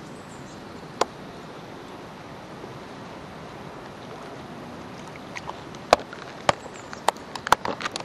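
Steady hiss of water and air, broken by one sharp knock about a second in and a quick, irregular run of sharp clicks and knocks over the last two seconds.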